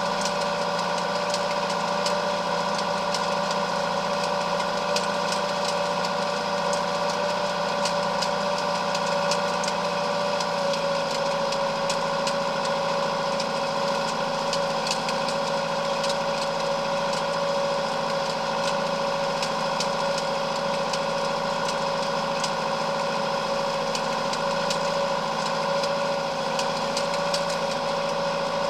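Ford 7610 tractor's four-cylinder diesel engine running steadily at working revs while it drives a PZ 300 rake rowing up grass.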